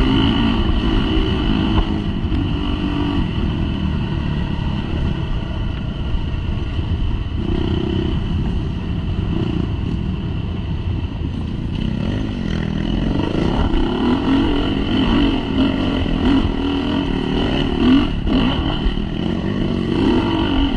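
Dirt bike engine running under way, heard from the rider's own bike, the revs rising and falling with the throttle, more so in the second half.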